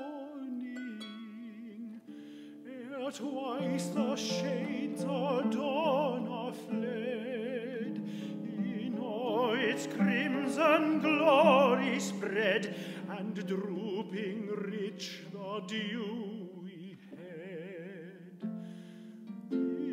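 Tenor voice singing with wide vibrato, accompanied by plucked concert harp, in a classical art song. The voice swells to its loudest a little past the middle.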